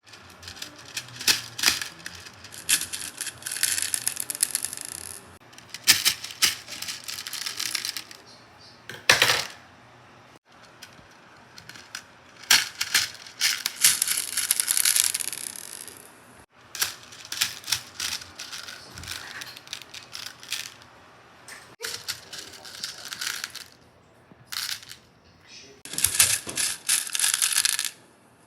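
Beads rattling and clicking against each other in repeated bursts of a few seconds, with short pauses between.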